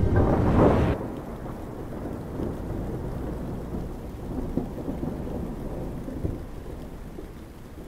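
A loud clap of thunder in the first second, then steady rain with low rolling thunder, slowly fading.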